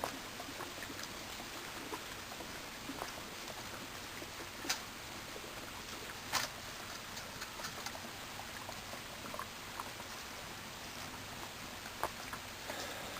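Faint steady fizzing and bubbling of gas through the water of an HHO electrolyzer bubbler, with scattered small pops and two sharper pops about five and six seconds in.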